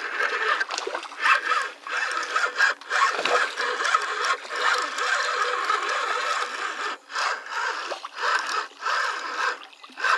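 Spinning reel being cranked, a continuous gritty whirring of the gears as line is wound in on a retrieve, with a few short pauses.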